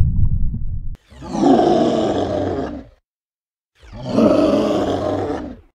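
Two long dinosaur-style roars, each about two seconds, with a pause of about a second between them, after a low rumble that stops sharply about a second in.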